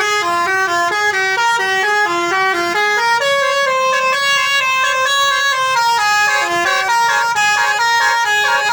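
Telolet basuri musical bus horns of two buses sounding together, playing a continuous tune of quick, stepping notes.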